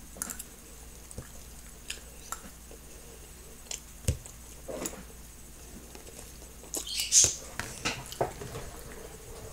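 Quiet, scattered small clicks and eating noises: chewing of sushi and a metal fork tapping and scraping in a plastic sushi tray, with a louder clatter about seven seconds in as the fork is set down in the tray.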